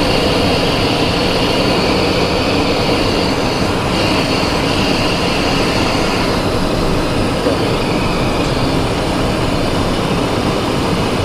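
Steady cockpit noise of a Cessna Citation XLS in flight: rushing airflow over the windscreen mixed with the hum of its two Pratt & Whitney PW545 turbofan engines.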